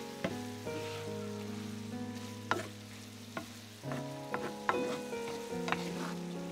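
Ground beef with onion, green pepper and tomato sauce sizzling in a honeycomb-surface stainless frying pan while a wooden spoon stirs it. A few sharp clicks come as the spoon knocks the pan. Soft background music plays with held notes.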